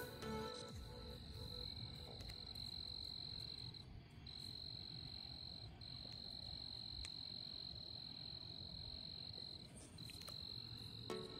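Steady high-pitched trill of night insects, running in long stretches with a few short breaks, over a faint low rumble.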